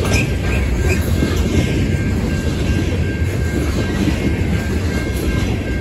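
Loaded coke hopper cars rolling past, a steady loud rumble of steel wheels on rail.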